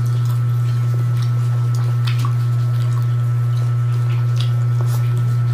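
Close-up wet chewing and mouth clicks of a person eating rice and kinilaw by hand, scattered small squishy smacks, over a steady low hum.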